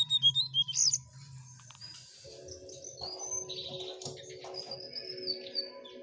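Caged jongkangan songbird chirping: a quick run of sharp high notes in the first second, then scattered chirps and a longer high whistle later, over a low steady drone.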